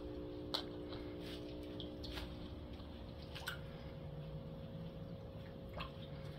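Scattered water drips and small plops, a handful of separate drops at irregular intervals over a steady low background hum.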